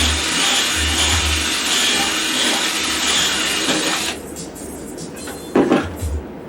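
Power drill running, boring holes in a plastic bucket, until about four seconds in when it stops. A short knock follows near the end.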